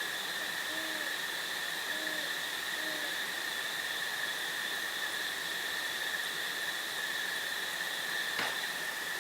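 An owl hooting three short, low hoots in the first three seconds over a steady, high-pitched chorus of crickets. A single sharp click sounds near the end.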